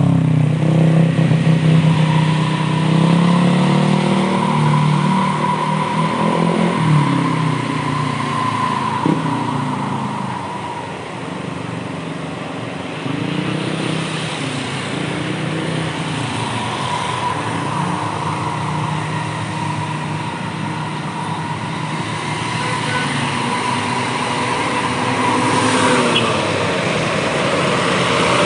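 Bus engines running under load as buses climb and pass, the engine note rising and falling several times through the middle.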